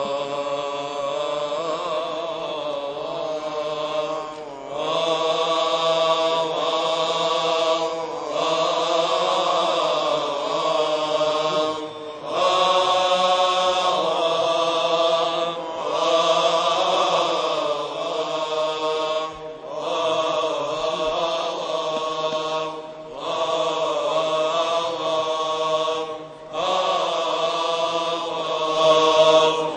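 Coptic liturgical chant: male voices singing a slow, melismatic hymn line, its melody gliding up and down, in phrases of about four seconds each broken by a short breath.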